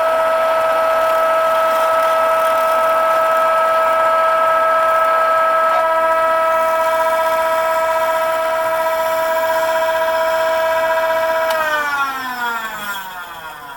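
High-speed grinding spindle of a Boyar Schultz profile grinder, turning at about 20,000 RPM and giving a loud, steady high whine. About three-quarters of the way through it is switched off and winds down, its pitch falling.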